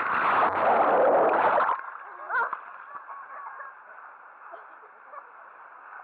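Water splashing loudly as the camera plunges into the splash pool at the bottom of a water slide; the rush cuts off suddenly under two seconds in. After that, pool water sloshes quietly.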